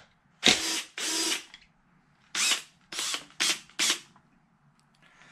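Cordless power driver running in six short bursts, each about a third of a second, backing out the screws that hold the wing on an RC truck.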